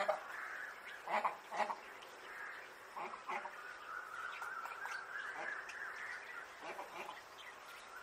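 Rose-ringed parakeet calling: a few short harsh squawks in the first two seconds, then a longer, quieter run of chattering from about three to six and a half seconds in.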